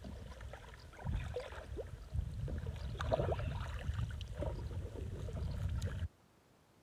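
Kayak paddle strokes splashing and dripping in the water, over a low rumble, all stopping abruptly about six seconds in.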